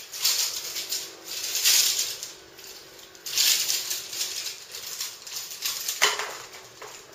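Steel springs of a multi-spring chest expander rattling as they are stretched and released, in about four surges, with a sharp knock about six seconds in.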